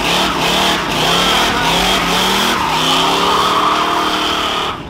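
Car engine revving in about three rising pulls, the last one longest and cutting off near the end, over a steady high squeal of spinning tires.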